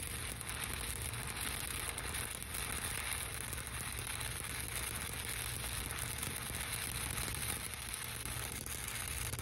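Stick-welding arc burning steadily with a continuous hiss as the electrode runs a bead, joining a plate end cap to 8-inch steel pipe.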